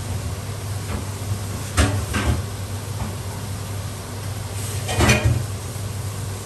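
Short clattering knocks of kitchenware, a pair about two seconds in and a louder cluster about five seconds in, over a steady low hum.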